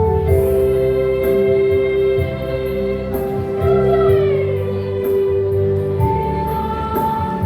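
Choir singing in harmony with instrumental accompaniment: long held notes, with a pitch slide about four seconds in.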